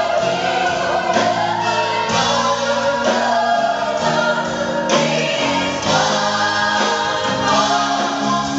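Gospel choir singing with a live band of keyboards, drums and guitar.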